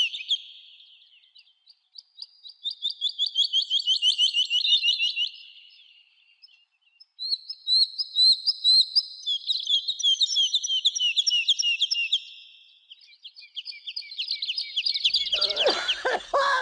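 Songbird birdsong: phrases of fast, high chirping trills several seconds long, separated by short pauses. Near the end a burst of noise comes in under the song.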